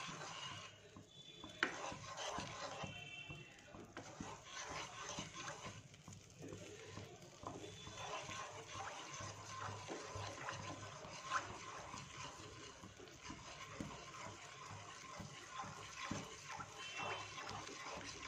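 Milk, sugar and ghee simmering in a kadhai on a gas flame while the sugar melts: faint, steady bubbling with scattered small ticks and pops.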